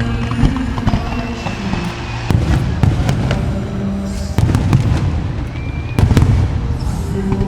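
Aerial fireworks bursting: deep booms about two, four and six seconds in, with many sharp crackling reports between them, over pyromusical show music.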